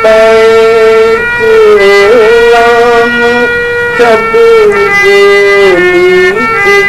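A man singing a devotional na'at in Urdu over long, sustained harmonium chords. His voice bends and ornaments between held notes while the drone of the reeds carries underneath.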